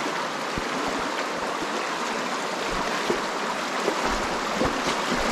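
Steady rushing of a fast, shallow river running over rocks, with a few faint low thumps.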